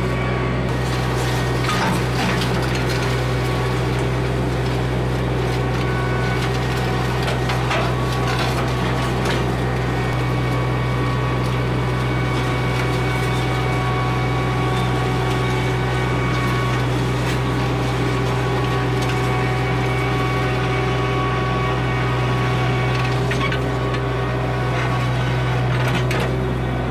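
Summit TX25 compact tractor engine running steadily under load as it pulls a ditching box through the soil, with a few short knocks.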